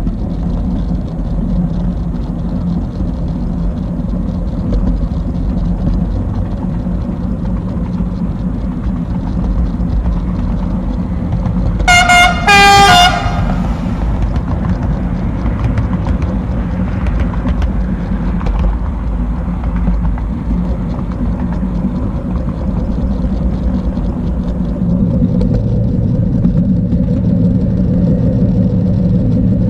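HO-scale model train running along the track with a steady low hum. About twelve seconds in, a locomotive horn gives two short blasts.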